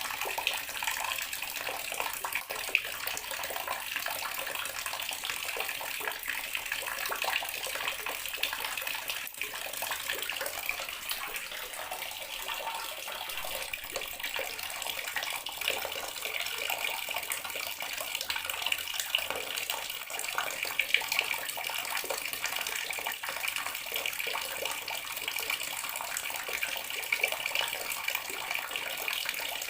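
Water running steadily from a bathroom tap, splashing into a basin or tub.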